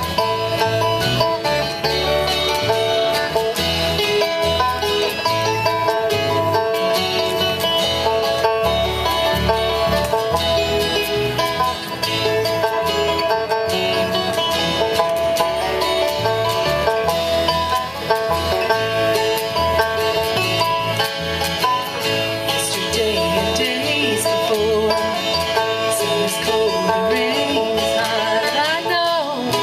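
Live bluegrass-style band music: banjo, acoustic guitars and fiddle over a steady bass beat.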